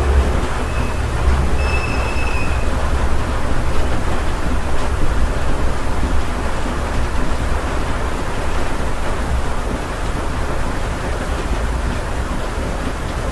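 Steady heavy rain heard from inside a house: a dense, even hiss over a deep rumble. A thin high squealing tone sounds in the first couple of seconds and then stops.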